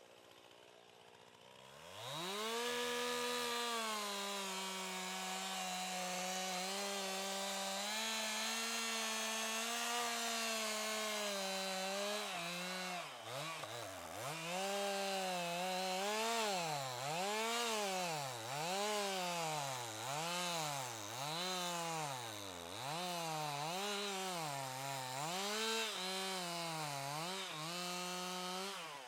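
Chainsaw engine run up to full throttle about two seconds in and held steady, cutting pine. From about halfway it rises and falls in speed about once a second, and it drops back near the end.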